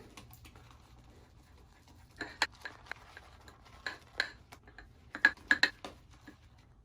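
A shaving brush working lather in a bowl, with scattered sharp clicks and taps in three short clusters.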